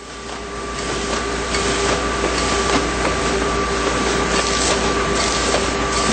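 Automatic pressure-sensitive labeling machine running, with its conveyor and wrap belt moving round containers through: a steady mechanical whir with two held tones and scattered clicks. It fades in over the first second.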